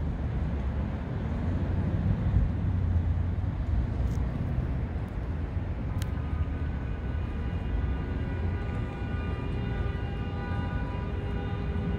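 Steady low rumble of outdoor vehicle traffic. About halfway through, after a click, a held chord of several steady tones joins the rumble and keeps sounding.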